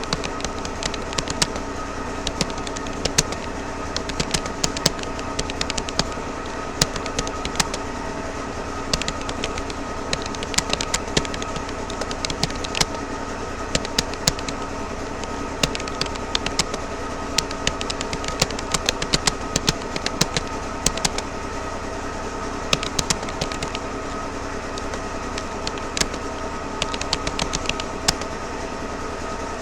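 Touch-typing on a Rapoo computer keyboard: a few uneven keystroke clicks a second, with short pauses. Under them runs a steady hum with several held tones.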